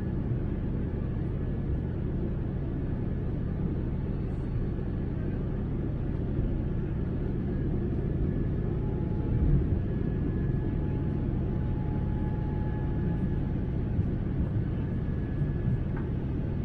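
Steady low cabin rumble of a Boeing 787-9 in its climb after takeoff, heard from a window seat: engine and airflow noise from its GE GEnx-1B engines. A faint steady whine joins about halfway through.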